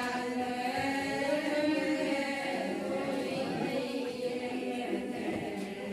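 A group of voices chanting a Ponung song together in long, held notes.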